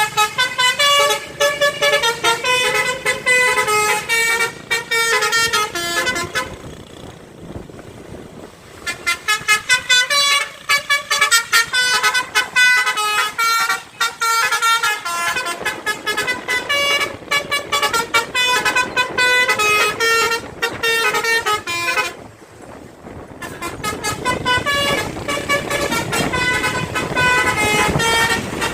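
A bus's 'telolet basuri' musical horn playing a tune as a quick run of short tooting notes, pausing briefly about a quarter of the way in and again near the end.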